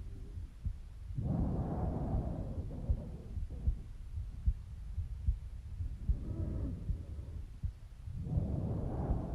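Normal breath sounds heard over the left side of the neck at rest: soft rushes of air swelling with each breath, about two and a half breaths. A heartbeat thumps underneath, a little over once a second.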